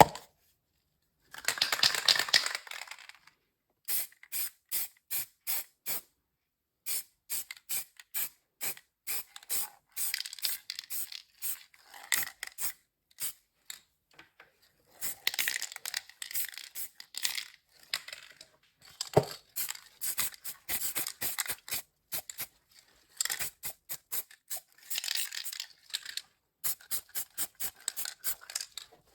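Short, quick hand scraping strokes in runs of a few seconds, cut apart by abrupt silences, with one sharp knock just past the middle.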